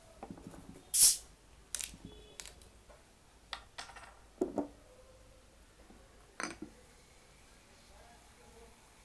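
A string of short, sharp clicks and clatters from food and tableware being handled during a meal, the loudest about a second in, the rest spread over the next six seconds.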